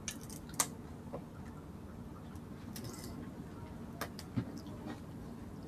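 Quiet sounds of eating by hand at a table set with plates and bowls: a few light clicks and taps, about four in all, with a brief soft rustle near the middle.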